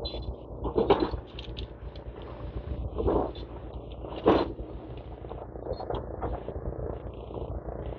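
Demolition excavator breaking up a building: its engine running low and steady while the attachment crunches concrete, with three louder crunches about one, three and four seconds in.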